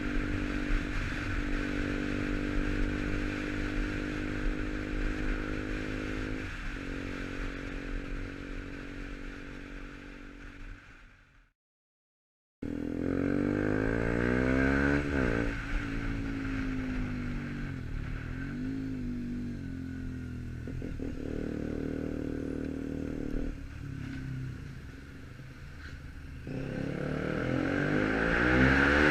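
KTM Duke 125's single-cylinder engine breathing through an Arrow exhaust while riding. It holds a steady note at first, then after a short break it revs up and drops back again and again as it is shifted through the gears.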